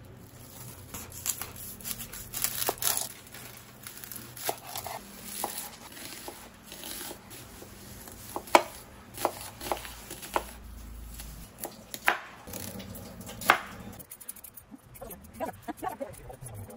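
Kitchen knife cutting an onion and a carrot on a bamboo cutting board: irregular cuts and knocks of the blade against the wood, a few of them sharp and loud in the second half. Plastic wrap crinkles near the start.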